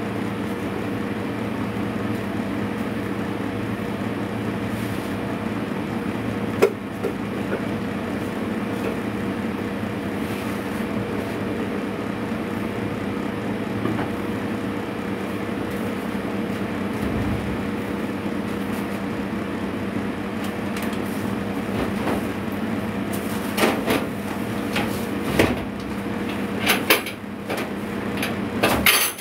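Steady mechanical hum of a kitchen appliance or fan, with a sharp knock about seven seconds in and a run of knocks and clatters near the end as pans and a cabinet are handled.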